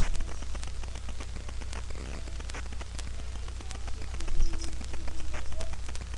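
Rustling handling noise of a plush doll being moved against the webcam: scattered small clicks and crackles over a steady low electrical hum.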